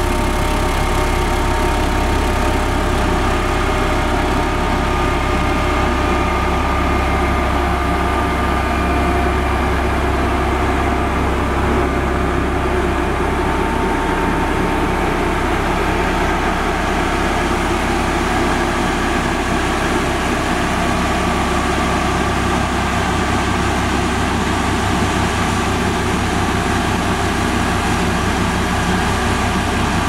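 Diesel engine of a LiuGong 6122E single-drum road roller running steadily: a constant low engine drone that does not change in pace.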